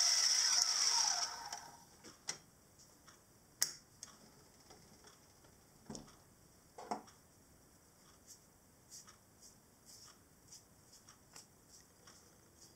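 A milling machine spindle and end mill run in a cut, then the motor switches off about a second in and its whine falls away as the spindle spins down. After that come scattered light clicks and a few knocks, the loudest a sharp click a few seconds in.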